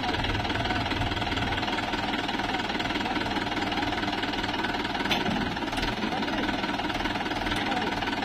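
Mahindra Yuvo 575 DI tractor's four-cylinder diesel engine running steadily with a fast, even clatter.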